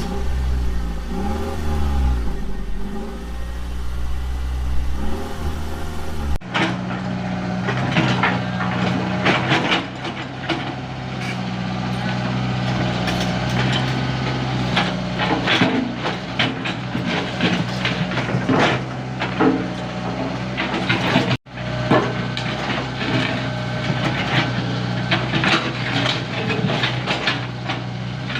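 Komatsu PC75 mini excavator's diesel engine running steadily under many short knocks and scrapes from the work. A deeper, steadier engine note holds for about the first six seconds, then gives way abruptly to the clattering.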